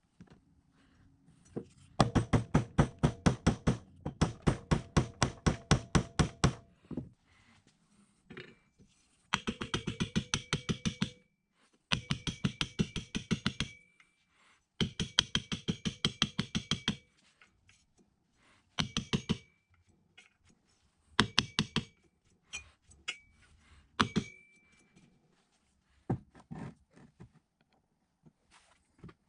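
Brass hammer tapping quickly on a steel driver, about five light blows a second in runs of a few seconds with short pauses, each blow with a brief metallic ring: seating new bearings into the drill press's pulley and quill.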